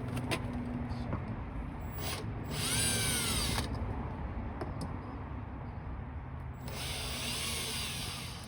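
Power drill whirring in two short runs, its pitch rising as it speeds up and falling as it slows, the first about two and a half seconds in and the second, longer one about seven seconds in.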